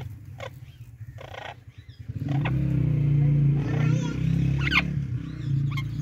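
Parrots giving short chirps and squawks. About two seconds in, a loud, low, wavering drone sets in beneath them and lasts to the end. It is the loudest sound, and a few more squawks come over it.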